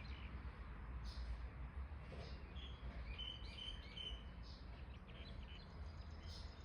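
Songbirds chirping and calling, with a cluster of short high chirps in the middle, over a low steady rumble.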